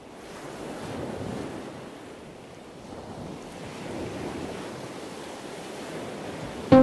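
Ocean surf: waves washing in, fading up at the start and swelling twice. A plucked chord of music cuts in at the very end.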